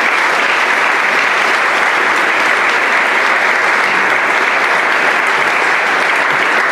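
Audience applauding: dense, steady clapping that stays level throughout.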